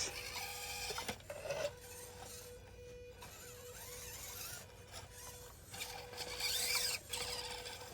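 Micro-scale RC crawler's electric motor and geared drivetrain whining as it crawls, with a rasping scrabble of tires and chassis on rock. The whine cuts out and resumes a few times, a stop-start that the driver puts down to a jumpy ESC.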